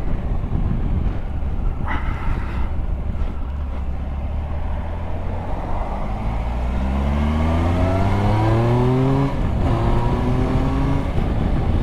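Triumph Tiger Sport's three-cylinder engine accelerating under way. Its note climbs steadily, drops with an upshift about nine seconds in, then climbs again, over wind noise.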